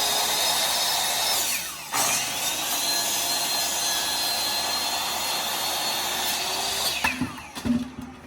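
Electric power saw running under its trigger, cutting wood for a coop leg post, with a steady motor whine. It cuts out briefly about two seconds in, starts again, and winds down with a falling whine about seven seconds in.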